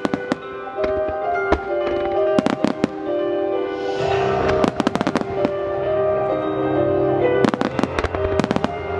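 Fireworks shells bursting in quick clusters of sharp bangs over the music of a music-synchronised display, a melody of held notes. A hissing crackle and a deeper rumble join about four seconds in.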